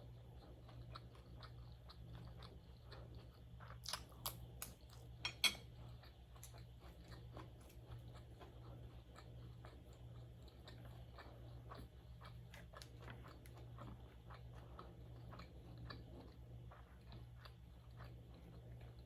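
Close-miked mouth sounds of a person chewing food, with a few sharper crunches about four and five and a half seconds in, over a steady low hum.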